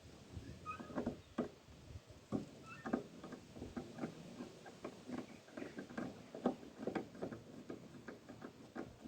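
Light, irregular clicks and knocks of hand tools and metal parts being handled during work on a van door, with a couple of brief squeaks.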